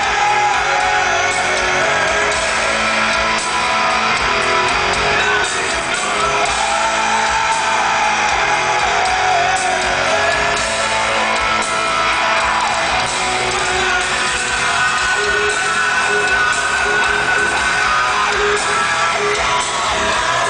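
Rock band playing live with electric guitar at the front, heard from the audience in a concert hall.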